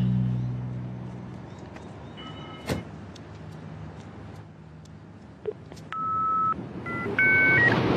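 Music fading out, a sharp click, then a run of short electronic beeps and two-note tones, each held for about half a second, getting louder toward the end.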